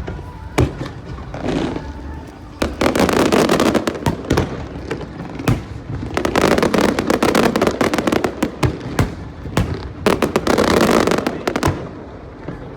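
Aerial fireworks going off: many sharp bangs, with three long stretches of dense crackling, about three seconds in, six seconds in and ten seconds in.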